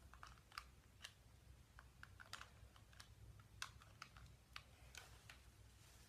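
Faint, irregular small plastic clicks and taps, about a dozen spread over a few seconds, as an SD memory card is fumbled into a small camera's card slot.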